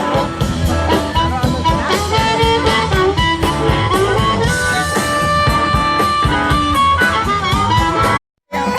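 Background music with a steady beat and melodic instrument lines, a blues or jazz feel with guitar, cutting out briefly near the end.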